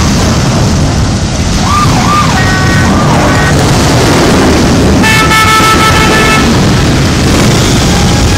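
Many Harley-Davidson V-twin motorcycles rumbling along at low speed in a dense, steady engine drone. Horns sound over it: a brief wavering tone under two seconds in, a short honk around two and a half seconds in, and a longer, chord-like horn blast lasting about two seconds from around five seconds in.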